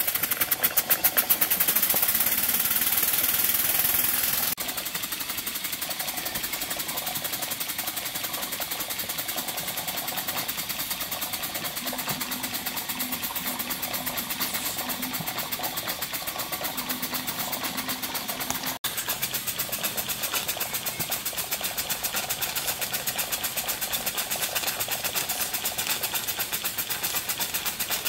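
Cotswold Heritage Perseus model steam engine, a small single-cylinder horizontal engine, running fast on steam: a rapid, even patter of exhaust beats over a steady hiss. It drops quieter about four and a half seconds in.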